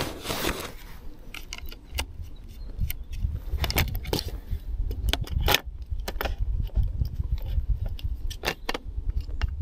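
Scattered clicks and knocks from a camera and a long telephoto lens being handled, over a steady low rumble.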